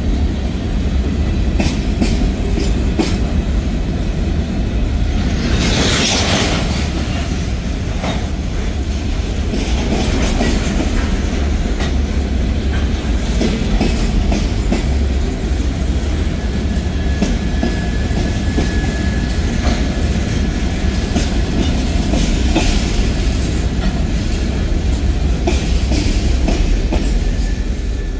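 Freight train cars rolling past: tank cars and covered hoppers rumbling along with wheels clicking over rail joints. There is a brief high screech about six seconds in and a faint thin whine in the second half.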